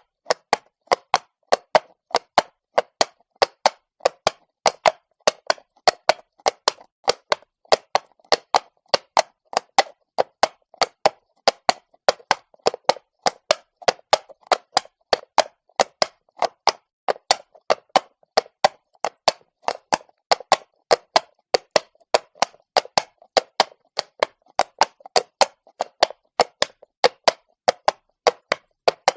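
A horse's hooves striking cobblestones at a walk: sharp, even clops, about three to four a second, with silence between them.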